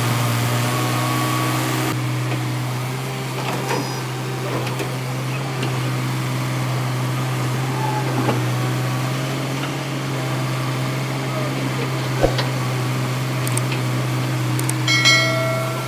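Tata Hitachi EX200 excavator's diesel engine running steadily, with a few faint knocks. A brief high-pitched sound near the end is the loudest moment.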